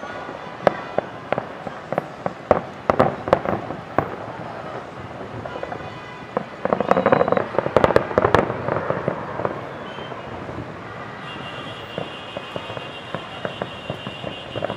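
Aerial fireworks display: a quick run of bangs and crackles from bursting shells, thickening into a dense crackling barrage about seven to eight seconds in, then thinning to scattered pops.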